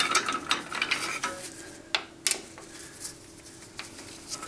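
Steel T-handle hex keys clinking and scraping against each other and the lathe's metal as different sizes are tried in a socket-head screw, with a few separate sharp clicks after the first second.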